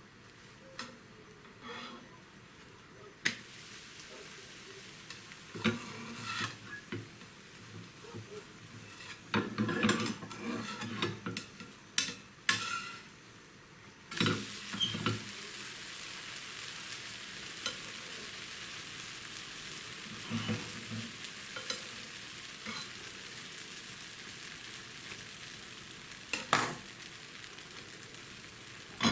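Blini frying in hot pans. In the first half there are scattered knocks and scrapes of a utensil on the pans; from about halfway through, a steady sizzle.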